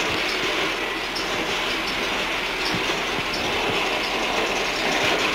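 A large spoked wheel turned steadily by hand on a crank, its wooden and metal mechanism rattling and clicking with irregular knocks.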